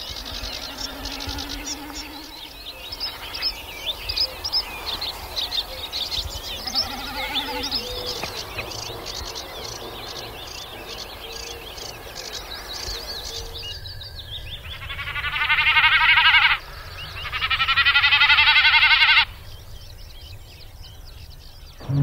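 Common snipe drumming in display flight: two loud, pulsing bleats in the second half, each about two seconds long, made by air rushing through the spread outer tail feathers as the bird dives. Before them, other birds chirp and sing in the background.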